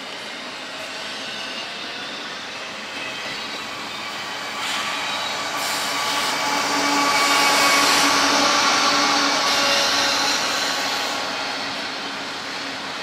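Double-stack intermodal freight train rolling past, steel wheels on rail with some high wheel squeal. A mid-train CSX diesel locomotive passes about halfway through: its engine swells the sound to a peak and then fades as the well cars follow.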